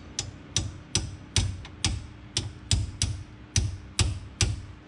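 A steady run of sharp ticks, a little over two a second, each with a short ringing tail, over a faint steady hum.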